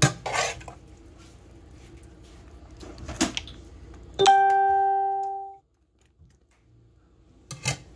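A utensil clinking against dishes a few times while vegetables are spooned onto the fish. About four seconds in comes a single clear ringing chime, like a doorbell tone, the loudest sound. It cuts off abruptly after about a second and a half into near silence.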